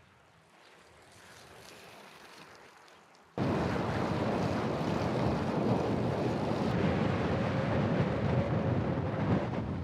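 Wind rushing over the microphone, fairly faint at first and then suddenly much louder about three seconds in, with a rough, buffeting rumble.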